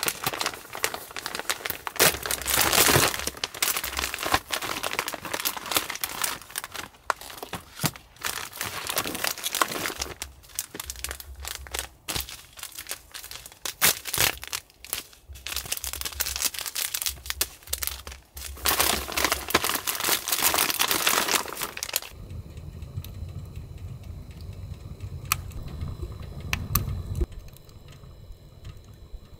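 Plastic food packaging crinkling and tearing as it is worked open by hand, in long bursts of rustling with short pauses. For the last several seconds it gives way to a quieter low rumble with a few sharp cracks from a wood fire burning in a stove.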